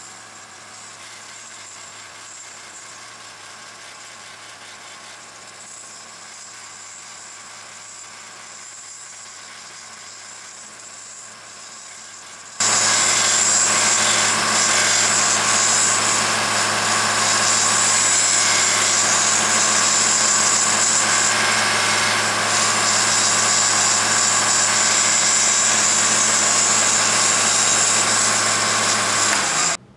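A 1x30 belt grinder fitted with a leather honing belt, running steadily. About twelve seconds in the sound jumps abruptly to much louder and stays steady, then cuts off sharply just before the end.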